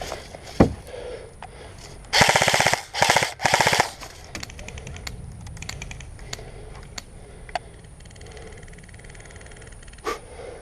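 Airsoft electric gun firing three quick bursts of rapid full-auto shots about two to four seconds in, with a single sharp crack before them and scattered fainter shots later.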